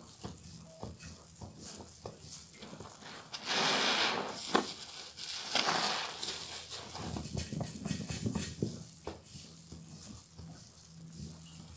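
Soap-soaked sponges squeezed by hand in thick suds: wet squelching and crackling foam, with two louder hissing gushes of soapy water a few seconds in.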